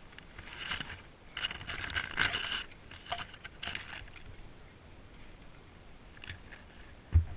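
Rustling and scraping noises in bursts with scattered light clicks, and a single dull thump near the end.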